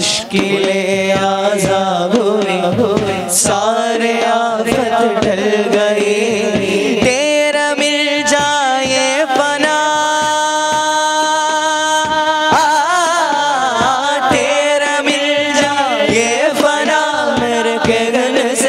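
Male voices singing an Urdu naat, Islamic devotional song, in long melismatic runs without clear words, with a long held note near the middle.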